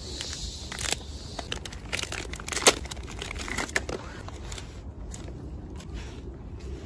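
Plastic snack wrapper crinkling and crackling as a macaque handles it and its food, in scattered small crackles with one sharper click a little under three seconds in.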